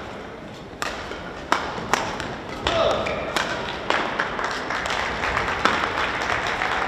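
A few sharp, separate hand claps, then light applause from a small crowd that builds toward the end, with voices calling over it.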